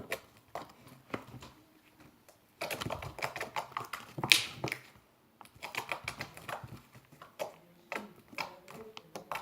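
Homemade slime being squeezed and worked by hand, giving irregular wet clicks and small pops, with one louder pop about four seconds in.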